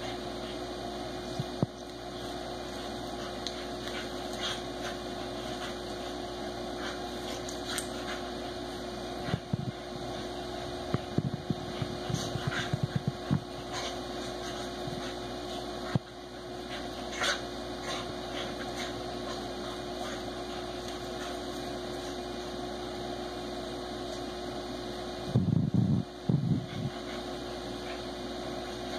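A pit bull and a basset hound play-wrestling: scattered small knocks and rustles, with short low dog vocal sounds in clusters about a third of the way in and loudest near the end, over a steady background hum.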